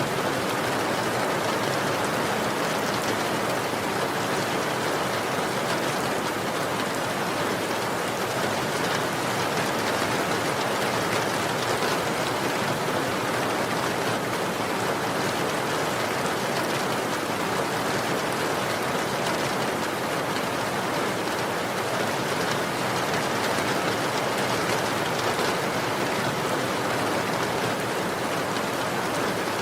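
Steady rain falling, a constant even hiss of drops with no thunder or distinct splashes.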